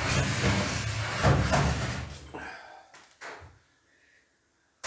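Clatter and rustle of a mains plug and cable being handled, then a single click about three seconds in.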